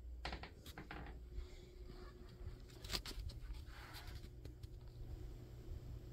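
Faint handling noise: a few short clicks and rustles in the first second, a sharper click about three seconds in and a brief rustle a second later, over a low steady hum.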